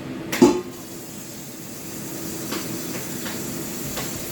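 A single sharp knock of a utensil on the pot, then the stew pot on the stove with a steady hiss and a few light clicks.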